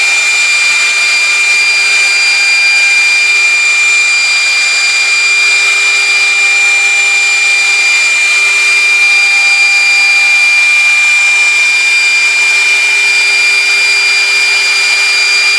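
A high-speed machine motor running steadily: a loud, even high-pitched whine over a continuous hiss, with no change in speed.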